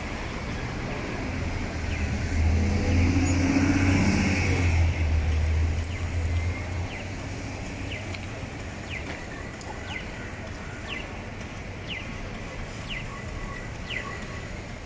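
A road vehicle passes on a city street, its engine a low rumble that swells and fades over several seconds. Then, over steady street noise, short high chirps repeat about once a second.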